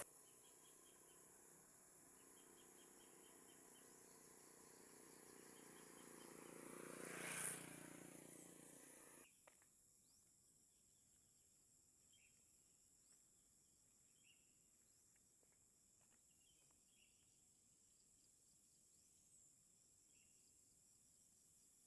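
Faint outdoor ambience of insects trilling. A vehicle passes by in a whoosh that swells to a peak about seven seconds in and fades. A little after nine seconds the ambience cuts to near silence, leaving only faint insect sound and a few soft bird chirps.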